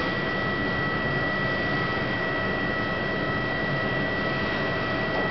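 Steady mechanical hum and hiss with a constant high whine, not changing at all.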